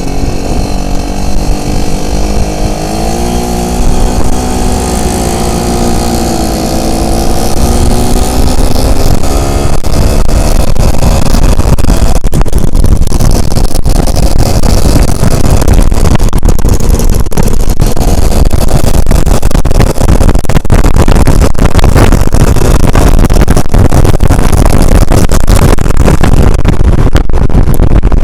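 Yamaha Alfa motorcycle engine revving, its pitch rising and then falling over the first several seconds, then the bike under way as a loud, steady rushing noise covers the engine.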